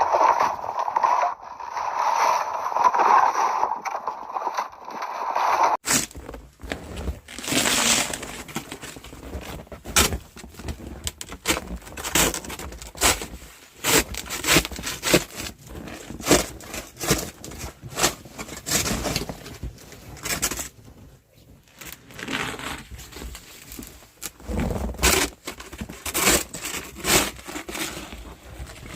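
Hard-packed snow being scraped and broken up with a hand tool: a steadier, muffled scraping for the first few seconds, then irregular crunching scrapes and knocks.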